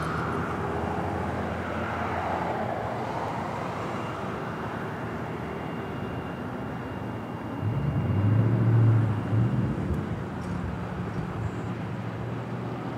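Street traffic: steady road noise from passing cars, with a louder engine swelling and fading about two thirds of the way through.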